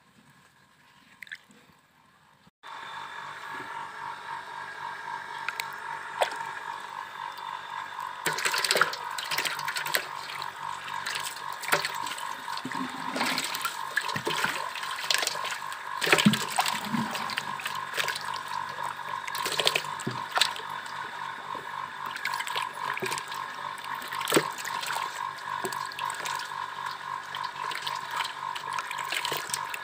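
Climbing perch thrashing and splashing in shallow water in a metal basin, with many short splashes. Behind them a steady whining tone that starts suddenly about two and a half seconds in.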